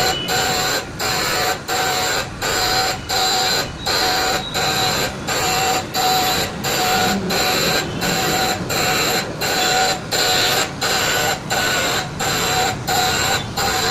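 Machine tool working a press die for re-sharpening, in a steady repeating cycle of about three strokes every two seconds: each stroke is a sustained whine, with a brief drop between strokes.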